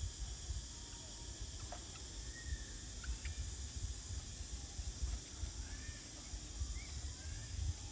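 Outdoor ambience: a steady high hiss with an uneven low rumble underneath. A few faint short chirps are heard through it.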